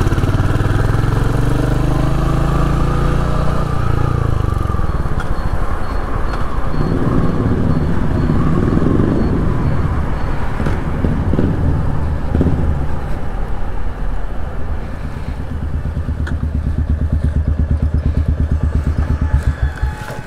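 Motorcycle engine heard from the rider's seat, rising in pitch as it pulls away and accelerates, then running steadily. It slows down and settles into an even idle rhythm for the last few seconds as the bike stops.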